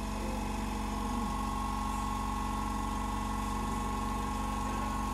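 Vevor "ultra-silent" electric air compressor running steadily as it fills a car tyre through its hose: an even hum with a steady higher tone over it. It is quiet enough to talk or sing over.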